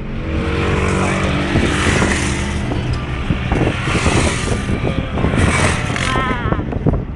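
Car engine running at a steady speed, with tyre and road noise, heard from inside the moving car.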